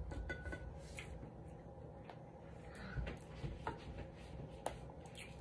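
Faint clicks and rubbing of cooked crab-leg shells handled by hand as the meat is picked out, a few separate clicks over a low steady background hum.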